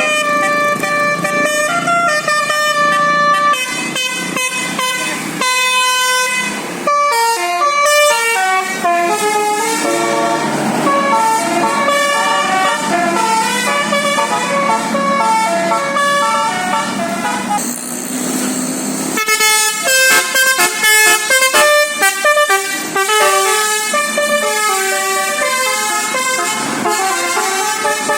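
Indonesian bus 'telolet basuri' musical horn playing a fast melody of stepped notes, several horn tones sounding together.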